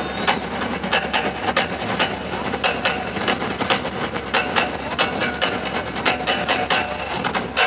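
A group of drummers playing a fast rhythm on large drums carried on straps, with sharp stick strokes several times a second.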